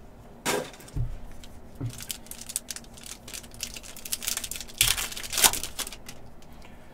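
Plastic wrapper of a Panini Contenders basketball card pack crinkling and tearing as it is opened by hand, with the cards sliding out. The crackles come in short bursts, loudest about five seconds in.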